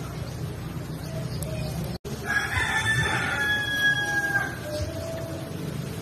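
A rooster crows once, a single long call lasting about two and a half seconds, over a low steady rumble. The audio drops out for an instant just before the crow.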